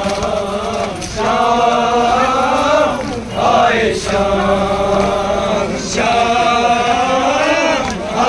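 A Kashmiri noha, the Muharram lament, chanted by voices in long held phrases that break off and start again every two to three seconds.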